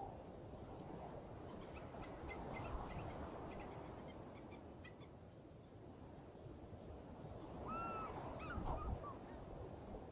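Wind rumbling on the microphone, with faint scattered bird chirps a couple of seconds in and a few short bird calls near the end.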